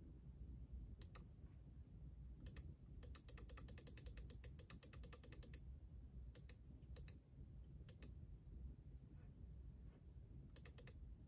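Faint computer keyboard and mouse clicks: a quick run of keystrokes about a third of the way in, with single clicks scattered before and after and a short flurry near the end.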